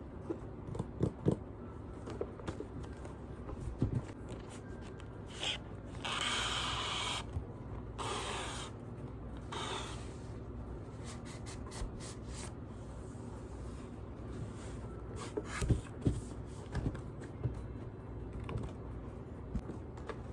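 Unboxing handling noise: scattered light knocks and taps, with longer scraping, rustling sounds about six, eight and ten seconds in, as packaging is slid and pulled.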